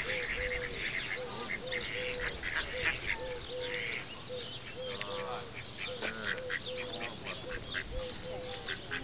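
Mallards calling: a long, even run of short calls about two a second, with many quick high chirps over them.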